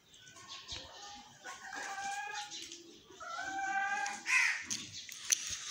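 Backyard chickens calling: two drawn-out calls of about a second each in the middle, with fainter shorter calls around them.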